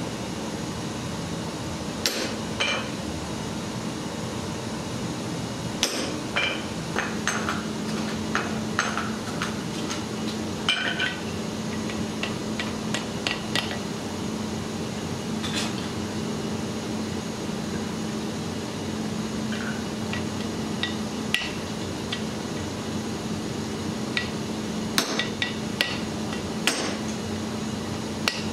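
Hammer and mallet striking metal on an anvil in scattered, irregular taps, with a cluster of quicker blows near the end, over a steady low hum.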